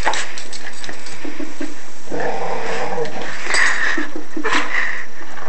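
Dogs growling as they play-wrestle over a toy, one of them a Boston Terrier, with a longer growl about two seconds in and shorter, sharper noises after it.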